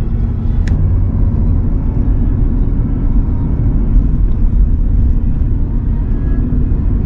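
Steady low road and engine rumble heard from inside a moving pickup truck's cab, with a brief click about a second in.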